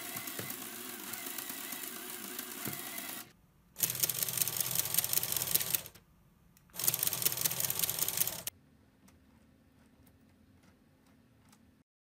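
Plastic LEGO Technic gears, differentials and engine pistons of a 42110 Land Rover Defender drivetrain clattering rapidly as the mechanism is turned by hand. The clatter comes in three spells of two to three seconds each, the second and third louder than the first, and then stops.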